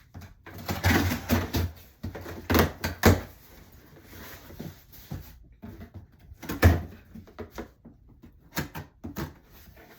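Handling noise: irregular knocks, clatters and rustles as items are moved about, with sharp louder knocks about a second in, around three seconds in, and near seven seconds.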